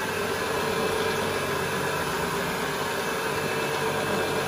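Counter-rotating brush (CRB) carpet machine running as it is pushed over the carpet, its two opposed brushes agitating pre-spray into the pile: a steady motor hum with a constant whine.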